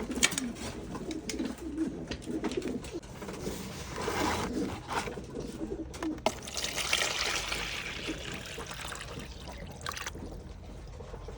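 Domestic pigeons cooing repeatedly, with water trickling as it is poured into the birds' drinker for a few seconds past the middle.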